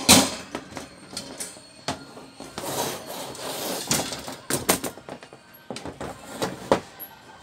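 Irregular clicks, knocks and rattles of a stand fan's wire guards and parts being handled. A sharp knock at the start is the loudest, and there is a short scraping rustle just before halfway.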